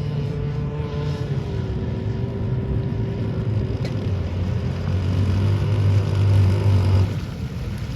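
Two-stroke gas engine of an RC boat running, its pitch dipping slightly about a second in. It grows louder toward the middle, then drops off suddenly near the end.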